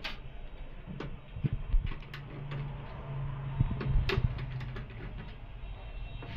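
Scattered clicks and knocks of plastic parts of an HP LaserJet M1005 printer being handled and taken apart, over a low background hum.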